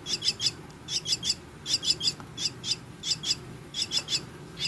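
Javan myna chicks calling: short, high, sharp calls in quick clusters of two to four, repeated several times, a cluster about every three-quarters of a second.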